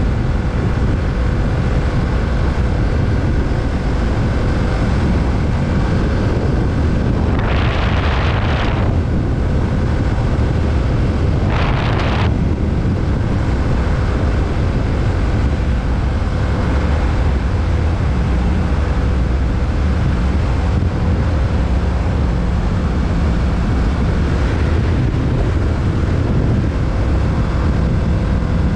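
A 2020 Kawasaki Z650's parallel-twin engine running steadily under way, with heavy wind noise on the microphone. Twice, briefly, a louder rush of noise cuts through.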